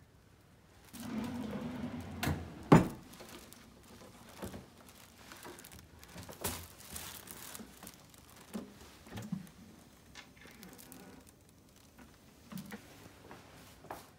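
Handling noises in a small room: a second or so of rustling, then one sharp knock a little under three seconds in, followed by scattered soft knocks and taps.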